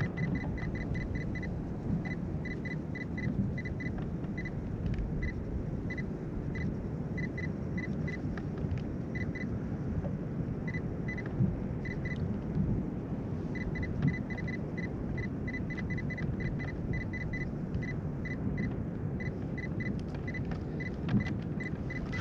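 Steady low rumble of wind on the microphone and water around a fishing kayak, with faint runs of short high-pitched pips, several a second, that come and go.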